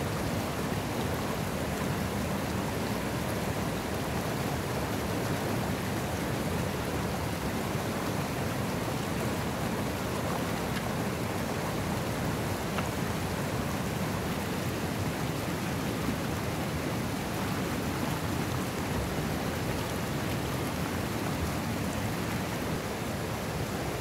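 Small river flowing, a steady even rush of water.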